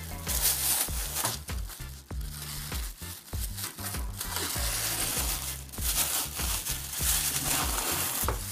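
Thin plastic bag crinkling and rustling in irregular bursts as it is torn open and peeled off a slab of chilled cookie dough.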